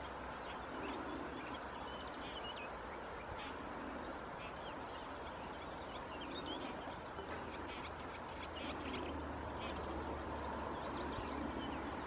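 Outdoor animal ambience: small birds chirping in short, scattered bursts, busiest about seven to nine seconds in, with low calls repeating every second or two over a steady background hiss.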